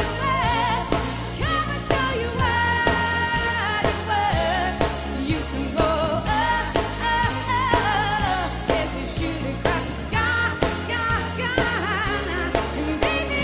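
Pop song performed by a live band: a woman singing over keyboards and drums with a steady beat.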